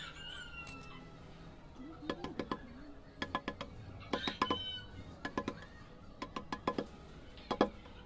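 Hand chiselling of a natural-stone (paras) relief: a small hammer strikes a steel chisel in quick clusters of sharp, ringing taps, two to five at a time, about once a second. A bird calls briefly at the start.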